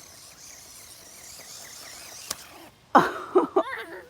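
Faint outdoor insect hiss with a few chirps, a sharp click a little past two seconds in, then about three seconds in a loud, broken burst of a person's voice, a short cry or laugh.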